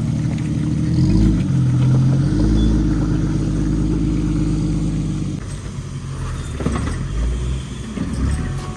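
Jeep engine running on an off-road trail. It gets louder about a second in, eases off after about five seconds, and is followed by a few knocks and rattles.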